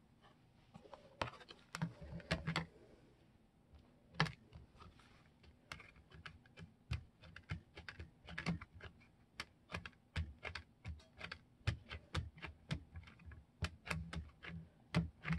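An ink pad's plastic case tapped and dabbed again and again onto a plastic embossing folder to ink it: quick, irregular light clicks, a few at first, then several a second from about six seconds in.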